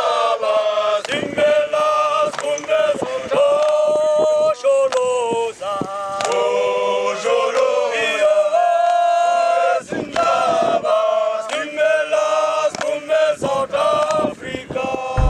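A group of men singing together unaccompanied in a repeated chant, with hand claps.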